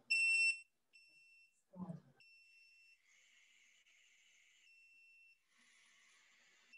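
Electronic beeper giving one loud, steady beep of about half a second, then three much fainter beeps of the same pitch over the next few seconds, with a faint hiss between them, as the robot dog's mode is being switched.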